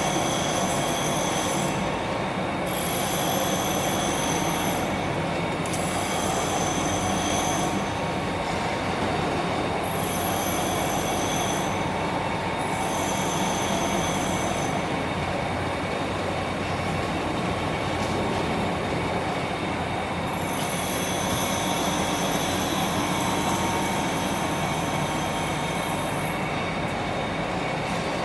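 Lathe gear train running: a steady mechanical din with high-pitched whining tones that fade out and come back every few seconds.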